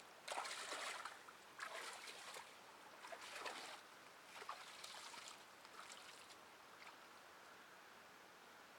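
Faint sloshing of shallow water, as of someone wading, in irregular splashes about once a second that die away after about five seconds.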